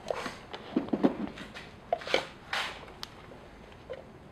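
Light clicks and knocks of espresso gear being handled, as the portafilter is taken off the espresso machine and brought to the grinder, with a couple of brief swishes about two seconds in.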